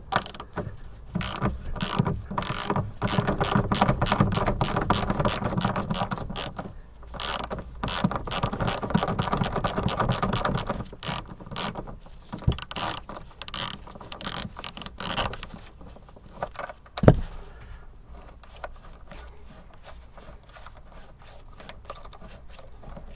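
Ratchet wrench clicking in quick runs for about sixteen seconds as it loosens a car's front seat mounting bolt, then a single sharp knock about seventeen seconds in.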